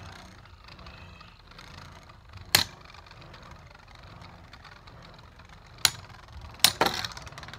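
Two Beyblade Burst spinning tops whirring on a plastic stadium floor, with sharp clacks of impact as they strike: one about two and a half seconds in, one near six seconds, and two in quick succession about a second later.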